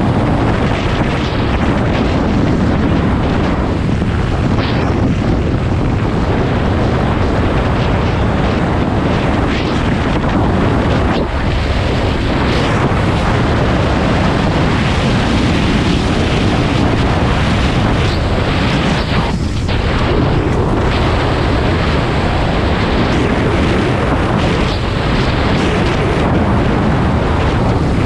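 Loud, steady wind rush and buffeting on the microphone of a camera on a moving motorcycle, with the ride's engine and road noise buried underneath.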